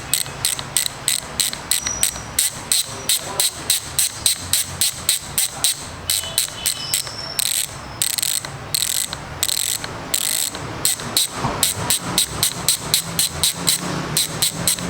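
Speedone Torpedo 8-pawl rear bicycle hub freewheeling, its pawls ratcheting in a loud clicking buzz that comes in quick, evenly spaced pulses, about three a second.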